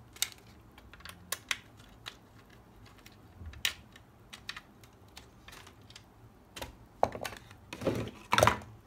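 Small sharp clicks and taps of a small screwdriver and handled parts as a screw is driven into the plastic underside of a die-cast model car. Near the end come louder knocks and rustling as the model and the screwdriver are set down on a mat.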